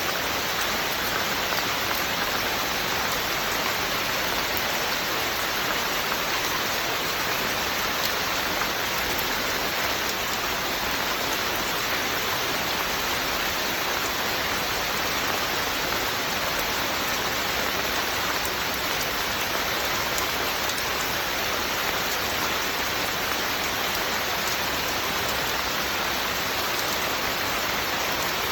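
Steady rain falling, an even, unbroken patter that does not change.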